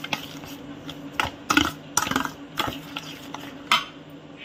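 Steel spoon stirring a thick, wet semolina-and-sugar mix in a metal bowl, clinking and scraping against the bowl several times, with the loudest knock near the end. A low steady hum runs underneath.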